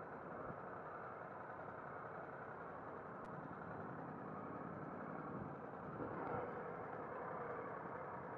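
Harley-Davidson Sportster V-twin engine running at low speed, a steady muffled sound that swells briefly about six seconds in.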